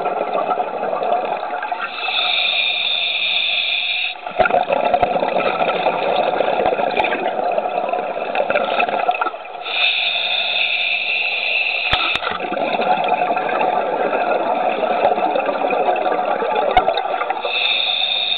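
Scuba diver breathing through a regulator underwater: a hissing inhalation about every seven to eight seconds, three times, with the rushing, gurgling noise of exhaled bubbles between them.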